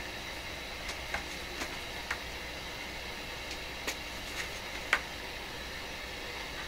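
Steady radio static hiss broken by irregular sharp crackling clicks, the loudest about five seconds in. The crackle is the interference from a leaky capacitor arcing as it breaks down under the checker's test voltage.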